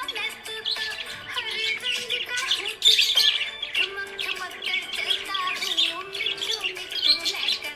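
Budgerigar chirping and warbling in a steady stream of quick, twittering notes.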